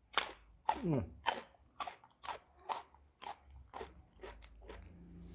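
Close-up crunchy chewing of raw jengkol beans, about two crunches a second, with a brief falling "mm" from the eater about a second in.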